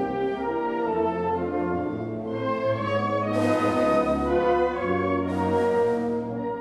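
Symphonic wind band playing a zarzuela selection: sustained brass and woodwind chords over low bass notes, with two crashes of percussion about three and five seconds in.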